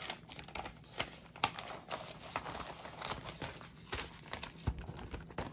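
An old comic book being handled close up: irregular crinkling with many small crackles and clicks.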